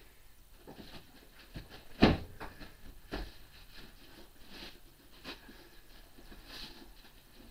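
Knocks, clunks and light scraping of lathe parts being shifted about in a wooden shipping crate, with the loudest clunk about two seconds in and another about a second later.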